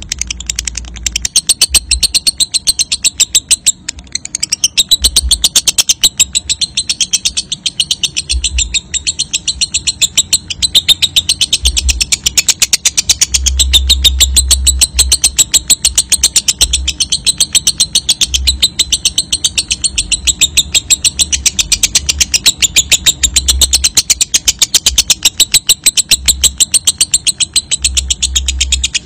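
Fischer's lovebird singing a long ngekek: a shrill, rapid chattering trill of clicks, many a second, running on without a break, with short low rumbles now and then underneath.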